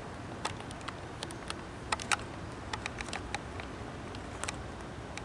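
Light, irregular clicks and ticks from handling, two sharper ones about two seconds in, over a steady background hiss.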